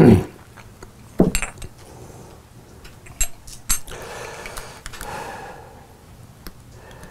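Small objects being handled and set down on a table: a knock at the start and another about a second in, a few light clinks of metal or china, then a stretch of rustling.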